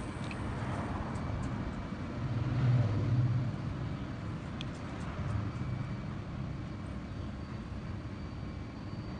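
Steady low background rumble, swelling louder for about a second around two to three seconds in, with a few faint ticks.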